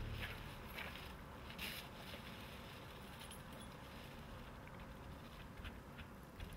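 Faint footsteps and the rustle of a plastic shopping bag, then a few small clicks of keys at a front-door lock near the end, over quiet outdoor background.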